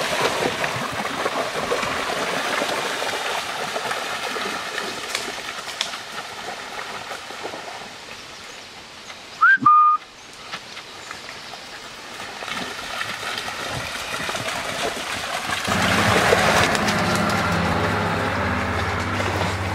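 Bulldogs splashing and wading through a shallow creek, the water rushing loudly at first and fading after several seconds. About halfway there is a single short, loud whistle that slides up and then holds. Splashing picks up again near the end, with a low steady hum under it.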